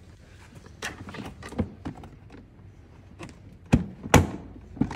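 Light clicks and knocks of a screwdriver and hands working on the plastic door hinge and mirror mount of a children's ride-on toy car, with two louder, sharp knocks in quick succession near the end.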